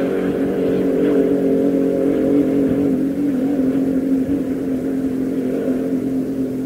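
Inboard racing hydroplane engine running flat out at high revs, a steady drone held at one pitch that slowly grows fainter near the end.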